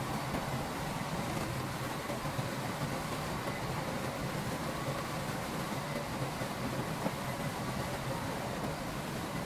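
Diesel engine of heavy earthmoving machinery running steadily, with a low hum and fainter steady higher tones.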